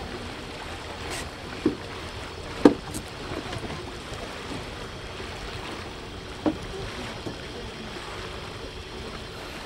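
Small river boat under way: a steady rush of water and wind, with three short knocks, the loudest about two and a half seconds in.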